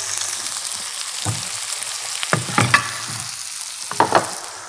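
Rib-eye steaks sizzling in a hot grill pan fresh from under the oven grill, the hiss fading toward the end. A few knocks cut through it as the pan is handled.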